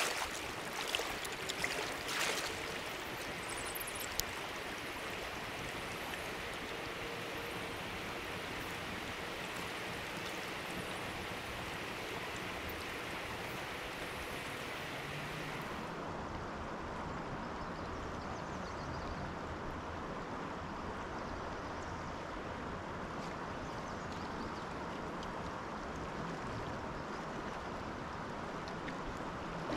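Steady rush of river water flowing around a wading angler, with a few brief knocks in the first couple of seconds. About halfway through, the rush turns duller.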